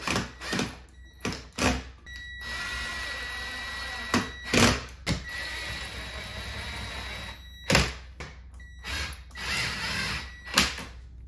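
Ryobi cordless driver driving screws through a shade bracket up into wooden window trim. A few knocks as the bracket and screw are set in place, then the driver runs steadily for about five seconds, a sharp click, and it runs again briefly before stopping.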